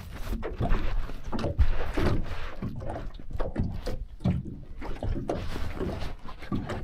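Small waves slapping against the hull of a small fishing boat, an uneven sloshing with scattered knocks.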